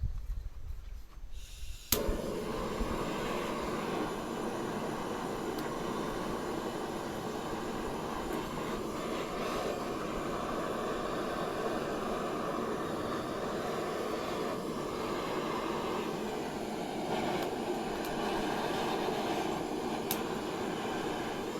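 Gas torch burner lit with a sharp click about two seconds in, then a steady flame noise that does not let up.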